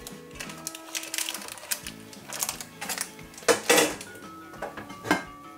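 Rustles and light knocks from handling a baked cake on a round metal cake board over baking paper, loudest about three and a half seconds in, over soft background music.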